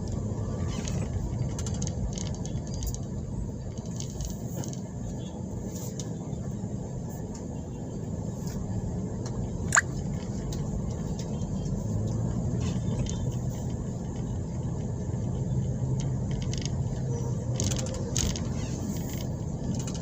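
Vehicle engine running at low speed in traffic, a steady low rumble with scattered small rattles and ticks. A single sharp click about ten seconds in.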